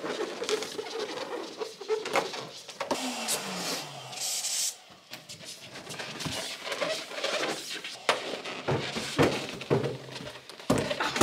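Inflated latex balloons being handled and knotted together in pairs: rubber squeaks, rubbing and light taps, with a short falling squeal about three seconds in and a brief hiss just after it.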